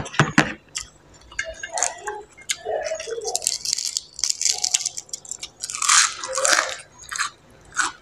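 Close-miked chewing and crunching of food, with many short crackles and clicks. About three to five seconds in comes a denser rustling crackle as a crisp leaf of raw vegetable is torn apart by hand, and another burst of crunching follows about a second later.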